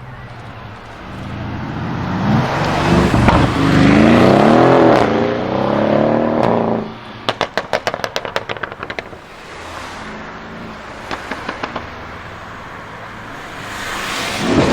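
High-performance car engine accelerating hard, its pitch climbing with a shift part-way through. The engine then cuts off sharply into a rapid string of exhaust crackles and pops for about two seconds, with a few more pops a little later, before it revs up again near the end.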